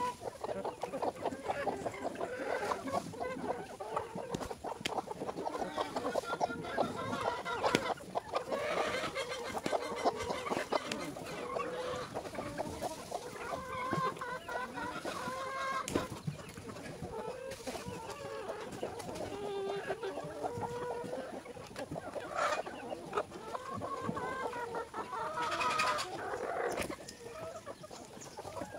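A flock of chickens clucking continuously as they crowd around the feed, many short calls overlapping.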